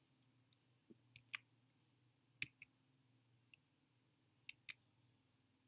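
Several faint computer mouse clicks, single and irregularly spaced, over near-silent room tone.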